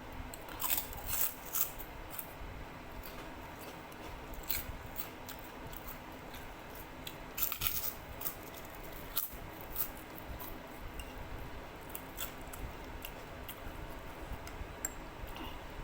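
A person eating up close: irregular bites, crunches and chewing, with scattered sharp clicks and snaps.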